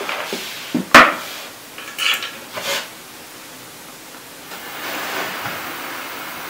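Handling noise as a digital multimeter and its probe leads are picked up and set down: one sharp click about a second in, a few small clicks and rustles a second or so later. A faint steady hiss comes in about halfway through.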